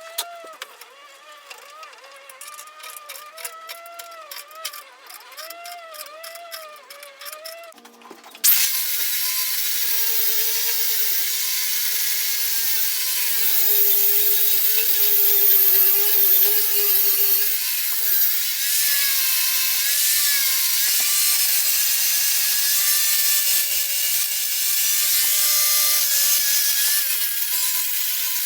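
A power tool starts abruptly about eight seconds in and runs loud and steady, its motor pitch sagging and recovering as it works. Before it starts there is a quieter wavering tone with small clicks.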